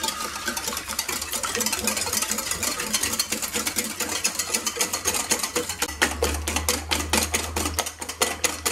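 Wire whisk beating eggs, sugar and oil by hand in a glass bowl: rapid, regular strokes, several a second, with the wires clicking against the glass.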